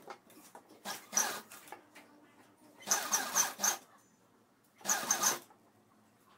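Sewing machine stitching in three short bursts with pauses between them while the seam is guided: the longest run is around the middle, with a quick ticking rhythm.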